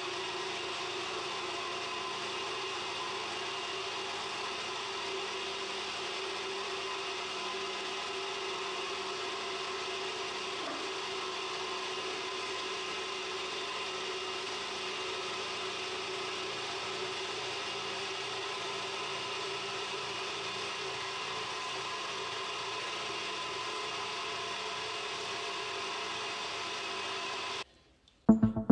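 Centrifugal gold concentrator running steadily, a whir and motor hum with water washing through as crushed ore slurry is fed in. The sound stops abruptly near the end.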